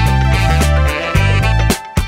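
Background music with bass notes and regular drum hits.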